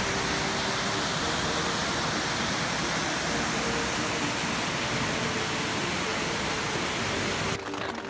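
Mountain creek water pouring over a small waterfall and through a log jam, a loud steady rush. It cuts off suddenly near the end.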